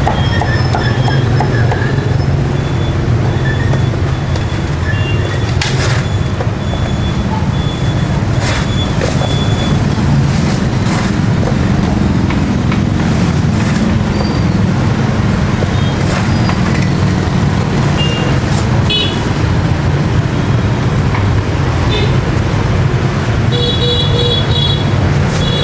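Steady street traffic rumble with occasional horn toots. Scattered sharp knocks from a cleaver striking a wooden chopping block sound now and then, the loudest about six seconds in.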